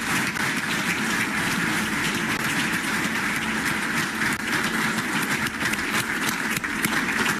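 Audience applause: many people clapping steadily in a hall.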